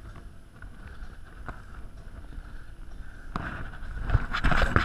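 Wind buffeting the microphone over the sea noise around a small boat, with a steady rumble. Louder gusts and knocks come in over the last second and a half.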